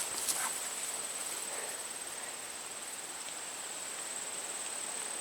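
Insects in the garden trilling steadily as one continuous high-pitched tone over faint outdoor hiss, with a few brief rustles just after the start.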